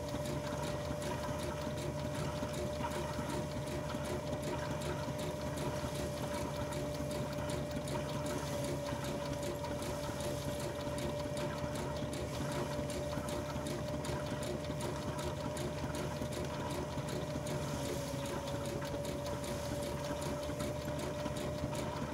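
A 1951 Ransomes threshing drum running under belt drive from a Burrell steam traction engine while being fed sheaves. It gives a steady, even hum with a fast, regular clatter of machinery beneath it.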